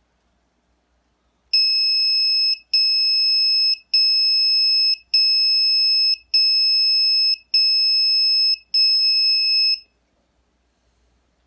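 The buzzer of a homemade fire-alarm circuit sounding seven loud, high-pitched beeps, each about a second long with very short gaps between them, stopping about two seconds before the end. The alarm has been set off by one of its sensors.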